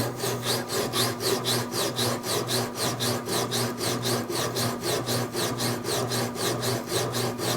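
SandShark sanding machine running at low speed on a short stroke, the knife blade rasping back and forth under sandpaper on an aluminium sanding block, about five or six even strokes a second over the machine's motor hum.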